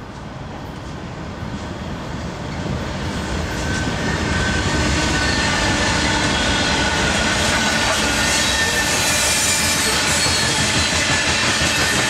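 BNSF diesel-hauled coal train approaching and passing close by: the locomotive's engine and wheel rumble grows louder over the first few seconds. It then holds as a steady rumble of steel wheels on rail as the coal cars roll past, with faint high-pitched wheel squeal.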